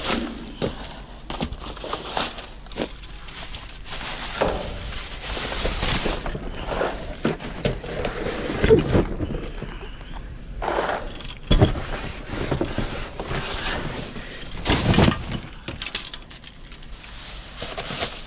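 Plastic trash bags rustling and crinkling as they are poked and dragged with a reacher-grabber tool inside a dumpster, with scattered clicks and a few louder knocks.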